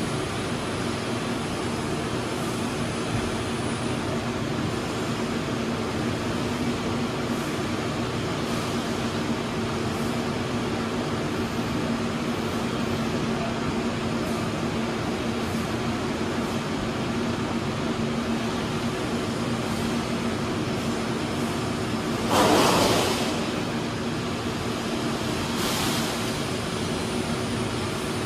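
Steady hum of running machinery, an even whir with a low held drone. Once, about three-quarters of the way through, a brief louder rush of noise lasts about a second, with a fainter one a few seconds later.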